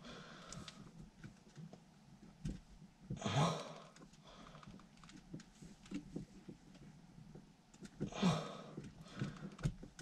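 Small plastic clicks and taps of a dash cam being handled and fitted onto its windscreen mount, with two louder rushes of noise, about three seconds in and again about eight seconds in.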